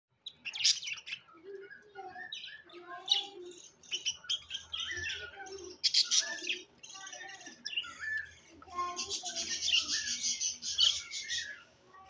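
Flock of budgerigars chirping and warbling, a continuous chatter of many short, quick calls that grows busiest near the end.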